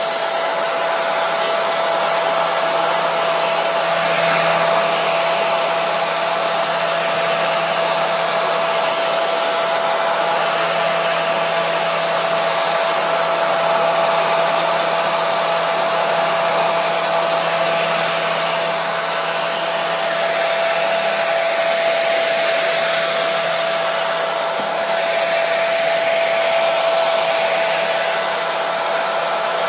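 Hair dryer running continuously, a steady rush of air with a steady whining tone from its motor and fan.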